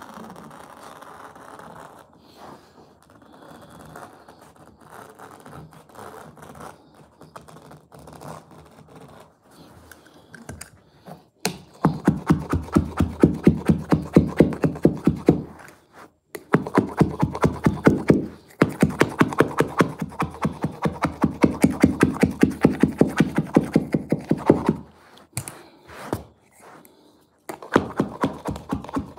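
Carpet-fitting blade cutting the carpet along the skirting board: quiet scraping at first, then from about twelve seconds in a fast run of loud rasping, crunching strokes as the blade saws through the backing, with short pauses and a break before it resumes near the end.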